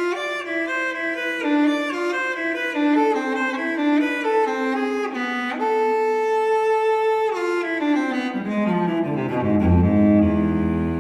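Solo cello playing a slow melody of long bowed notes, sinking into its low register in the last few seconds.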